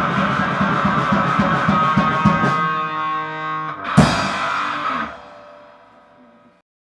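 Grind/noise band's guitar and drums playing fast, with rapid even drum hits, then breaking into a held, ringing guitar chord. One loud crashing hit lands about four seconds in and the sound decays away to silence near the end, the close of a song.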